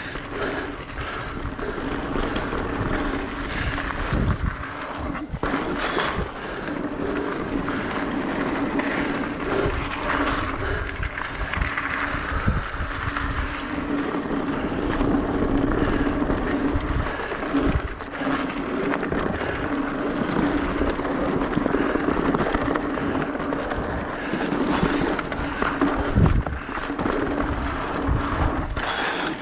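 Mountain bike rolling fast on packed-dirt singletrack: knobby tyres running on the dirt with a steady hum and wind rushing over the microphone, and a few low thumps as the bike hits bumps.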